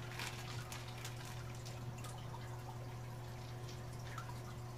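Water faintly dripping and trickling into a small glass aquarium as wet macroalgae is lifted out of its bag above it, over a steady low hum.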